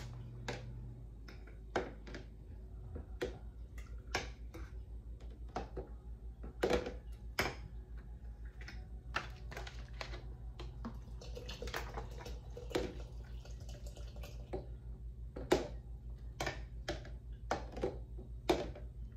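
A metal ladle clinking and knocking against the inside of a large glass jar as a fruit drink is stirred, in irregular clinks. About eleven seconds in there is a few seconds of rustling as a plastic water bottle is handled.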